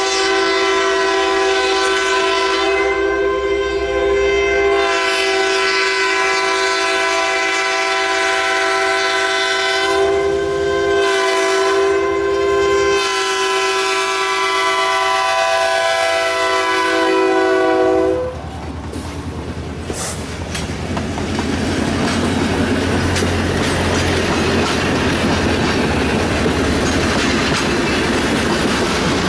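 Multi-tone air horn of an approaching diesel locomotive, Burlington Northern 6234, sounding long blasts with brief breaks and stopping about 18 seconds in. The train then passes close by: a loud rumble of the locomotive and passenger-car wheels clicking over the rail joints.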